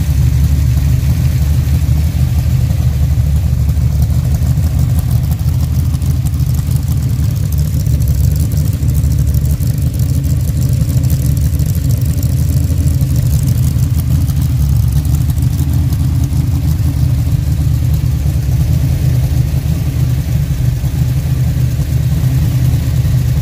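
Pontiac 455 V8 with a hydraulic roller camshaft, warmed up and idling steadily on an engine run stand, its exhaust coming through two short mufflers.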